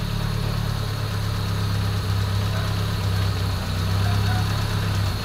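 Honda Civic D15B 1.5-litre four-cylinder engine idling steadily with a low, even hum, running on its replacement cylinder head.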